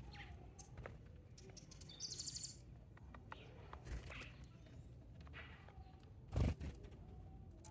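Small songbirds chirping at a backyard feeder, with a quick high trill about two seconds in and scattered single chirps, over a low steady background rumble. A loud short thump comes a little after six seconds.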